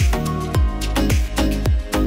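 Upbeat electronic background music with a steady kick-drum beat, about two beats a second.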